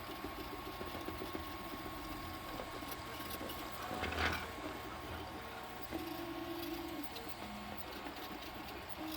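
FDM 3D printer's stepper motors whirring as the print head moves, each move a short steady tone at a different pitch, with a single knock about four seconds in.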